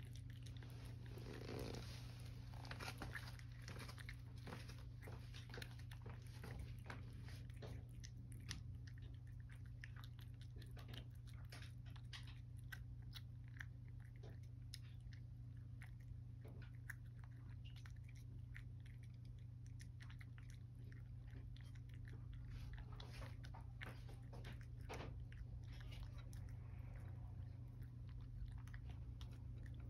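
A cat crunching dry kibble from a dish, a steady run of small irregular crunches and chews, over a steady low hum.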